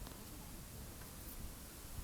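Wind rumbling on the microphone over a steady hiss, with a faint click at the start and another about a second in.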